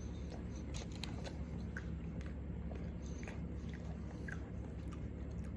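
A person chewing a mouthful of burger, with small wet clicks and smacks over a steady low hum.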